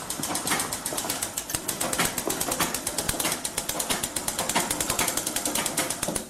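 Sewing machine running fast and steadily, its needle mechanism clattering at about ten stitches a second, then stopping just before the end.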